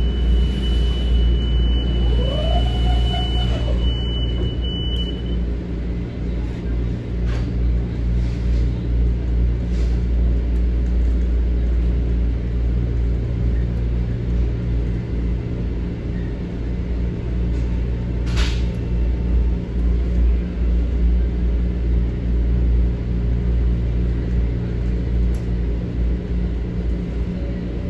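Metro-North M7A electric multiple-unit commuter train running along the track, heard inside the passenger car: a steady low rumble. A short tone rises, holds and falls a couple of seconds in, and a single sharp click comes about two-thirds of the way through.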